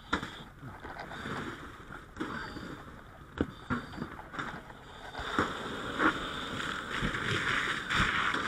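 Water from a fire hose spraying and splashing on debris, getting stronger about five seconds in, with scattered sharp knocks and clunks.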